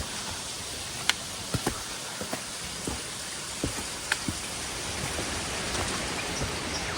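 Steady rush of falling water, with scattered irregular footsteps and knocks on a rocky bush track.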